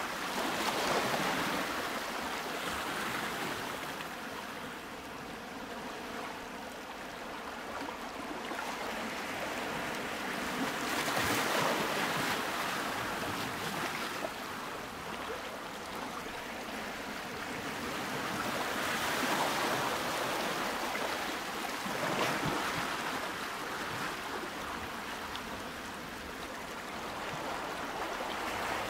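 Ocean waves washing in, in slow swells several seconds apart.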